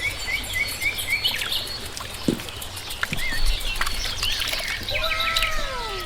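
Birds chirping and calling, with quick repeated chirps early on, scattered clicks, and falling whistled calls near the end.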